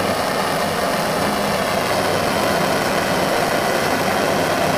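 Handheld gas torch burning with a steady hiss, its flame heating a copper wire red-hot to anneal it.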